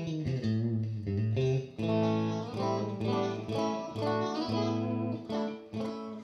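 Electric guitar (a Fender Stratocaster) played through a 1968 Fender Super Reverb tube amp: a run of struck chords and single notes. The amp's EQ has just been set with the treble turned down and the bass turned up, mids at 5.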